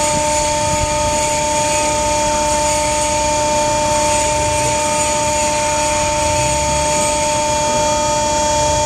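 Hydraulic winch system running with a steady, unchanging whine and drone, while the valve is driven at low output and the winch is just starting to turn.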